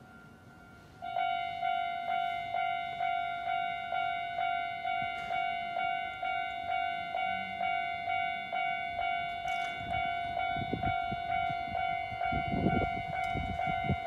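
Japanese railway level-crossing warning bell starting about a second in: an electronic clanging tone repeating a little over twice a second, signalling that a train is approaching and the barriers are coming down. A low rumble joins near the end.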